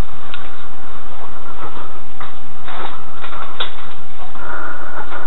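A few light clinks and knocks from a handful of steel lug nuts being carried, with rustling, over a steady hum.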